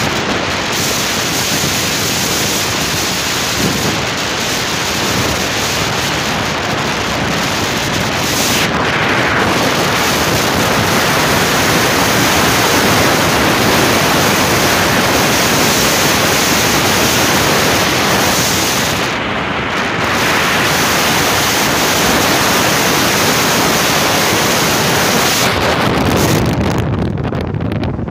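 Loud, steady wind buffeting the microphone of a moving car, filmed out an open window, a rushing hiss with no tones in it. The upper hiss eases near the end.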